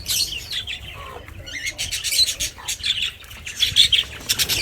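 Many birds calling at once, with short harsh squawks and chirps overlapping continuously.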